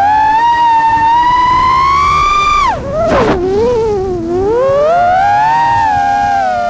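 Motors and propellers of a 6-inch iFlight Nazgul Evoque F6D V2 FPV quadcopter whining, heard from the camera on the drone itself. The pitch climbs with throttle, falls sharply a little under three seconds in with a brief rush of noise, bottoms out, then rises again and eases off near the end.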